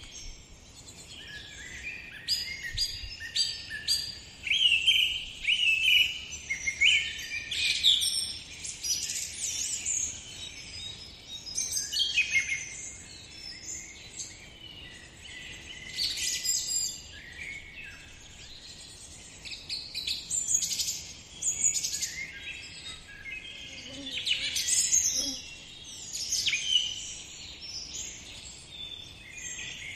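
Birds chirping and singing, many short calls and trills overlapping, in bursts every few seconds.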